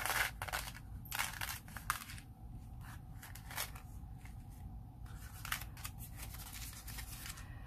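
Paper rustling and crinkling in irregular short bursts as hands handle craft paper pieces and slide them into paper pockets.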